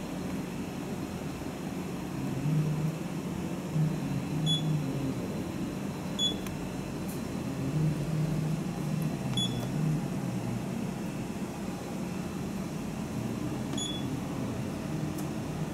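Coordinate measuring machine at work on an aluminium scooter deck: a steady hum with a low motor drone that swells while the probe head travels. Four short high beeps at irregular intervals, as the touch probe triggers on contact with the part.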